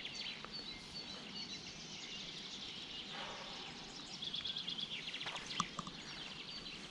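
Small birds singing outdoors, with rapid trilled phrases and chirps repeating, over faint background hiss. A single sharp click sounds about five and a half seconds in.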